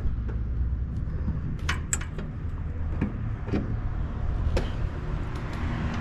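A few sharp clicks and small metallic knocks as the headlight and its retaining ring are pressed and fitted into the headlight bucket, over a steady low rumble.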